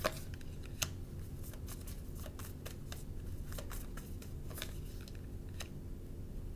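Tarot cards being handled and shuffled, an irregular run of light clicks and taps that stop about a second before the end, over a steady low hum.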